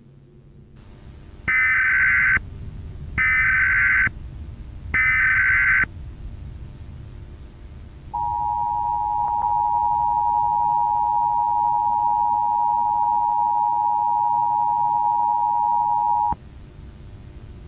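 Emergency Alert System alert opening: three short bursts of SAME header data tones, each just under a second, then the two-tone EAS attention signal held steady for about eight seconds before it cuts off, over a faint static hiss.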